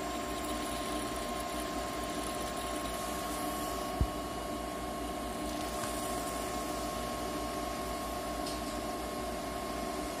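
Steady mechanical hum with several steady tones, from the running ink system of a Citronix 3300 continuous inkjet printer while solvent is flushed into its printhead gutter. A single sharp click about four seconds in.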